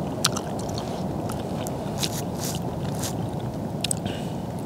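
Steady rain falling in a forest, with scattered sharp ticks of drops striking close by.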